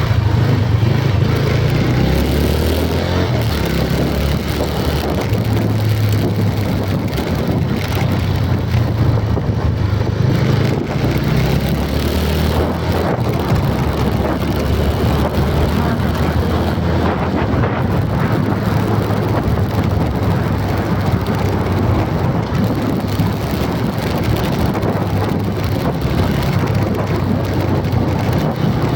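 Steady vehicle noise: an engine's low hum under a constant rush of road and wind noise, with no break or change.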